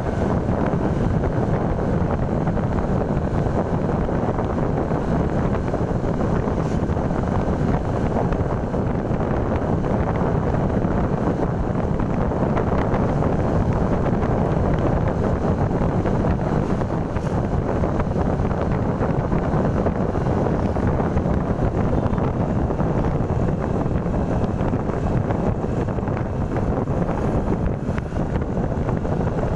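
Steady wind rushing over the microphone, mixed with the running noise of a moving vehicle. It is constant throughout, with no horn or other distinct event.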